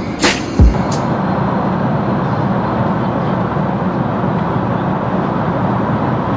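Steady cabin noise of an airliner in flight, an even rushing drone of engines and air. A music track with deep bass-drum hits ends about a second in.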